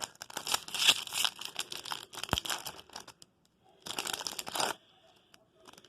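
Foil Yu-Gi-Oh booster pack wrapper crinkling and tearing open in two spells of crackling, with a short dull thump between them.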